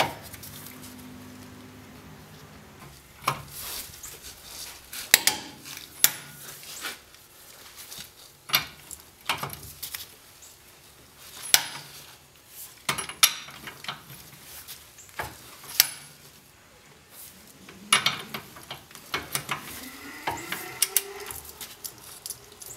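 A wrench and 7/8-inch socket clicking and clinking on the top ball-joint nut of a Dana axle steering knuckle as it is tightened to 100 foot-pounds. The sharp metal clicks come irregularly, about one to two seconds apart, bunching up near the end.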